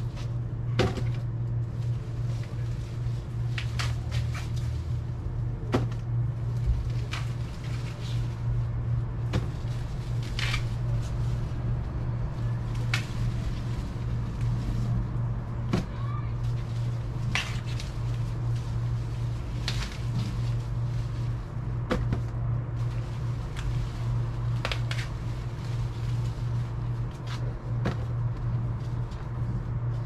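Ears of sweet corn being snapped off their stalks by hand: irregular sharp snaps and knocks every couple of seconds, with leaf rustle, over a steady low hum.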